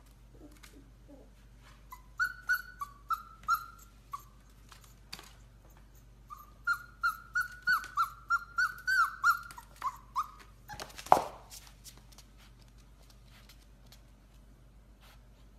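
Golden retriever puppy whining in strings of short, high-pitched cries: a few at first, then a quicker run of about a dozen, ending in one louder yelp about eleven seconds in.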